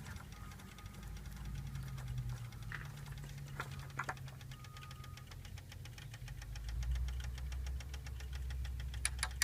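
A low, steady engine hum with fast, even ticking, getting louder about two-thirds of the way in. A few sharp clicks in the middle and near the end fit the threaded oil dipstick cap being unscrewed and handled for an oil-level check.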